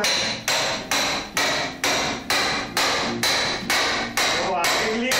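Steady hammer blows on the old wooden planking of a boat hull being dismantled, about two strikes a second, each with a brief ringing tone.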